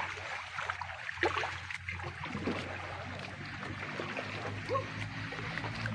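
Kayak paddling: water trickling and splashing softly off the paddle blades, with a few light strokes scattered through.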